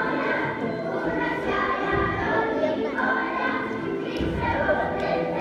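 A song sung by a choir with instrumental backing, playing steadily without a break.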